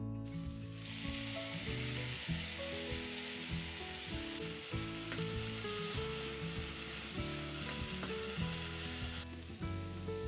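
Diced eggplant, onion, red pepper and tomato sizzling in oil in a frying pan while a wooden spatula stirs them, with background music underneath. The sizzle starts about half a second in and stops about a second before the end.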